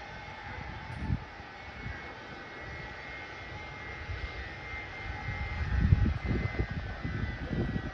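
Boeing C-17 Globemaster III's four turbofan jet engines running with a steady high whine, over an uneven low rumble that swells loudest about six seconds in.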